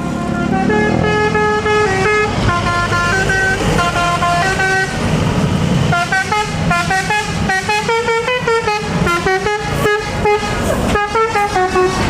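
Tour bus's telolet musical air horn playing a tune: a phrase of held notes, then a quicker run of short notes from about six seconds in.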